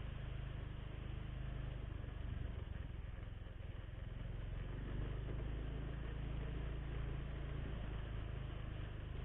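Honda Vario single-cylinder automatic scooter ridden at a steady speed: engine and road noise as an even, low-heavy hum with no change in pace.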